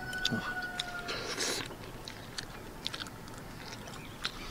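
Two people eating salted duck and rice: chewing and the light clicks of chopsticks against porcelain rice bowls, with a short rustle about a second and a half in.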